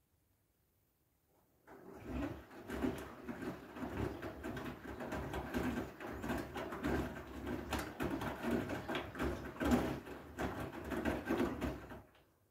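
Front-loading washing machine drum turning during a wash cycle, wet laundry and water sloshing and tumbling in a steady pulsing rhythm. It starts about two seconds in and stops shortly before the end, as the drum pauses between turns.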